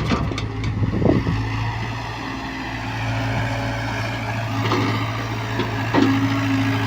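Hyundai excavator's diesel engine running steadily under work, with a few knocks and clanks; a higher steady hum joins near the end.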